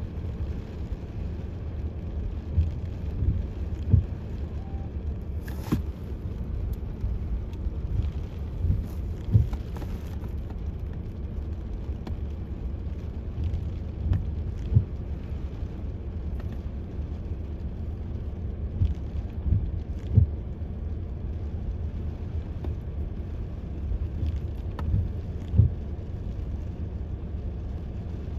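Wind buffeting the phone's microphone: a steady low rumble with frequent irregular gusty thumps.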